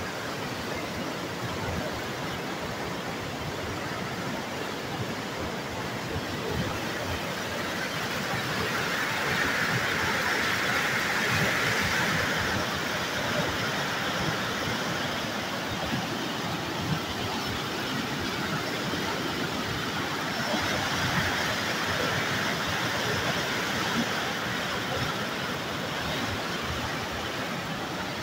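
Turbulent water gushing through the sluice gates of a river barrage and churning below them, a steady rush that swells louder for a few seconds about ten seconds in.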